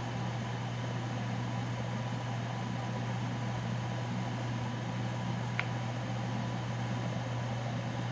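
Ninja Foodi's crisping-lid fan running with a steady hum, with one faint click a little past halfway.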